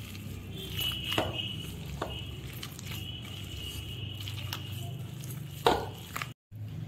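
Hands squeezing and mixing a thick besan (gram-flour) dough with chopped onion in a stainless steel bowl: soft squishing with a few sharp knocks against the bowl, the loudest near the end, over a steady low hum.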